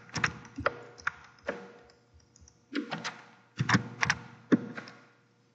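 Computer keyboard being typed on: about a dozen separate keystrokes at an uneven pace, with a short pause about two seconds in.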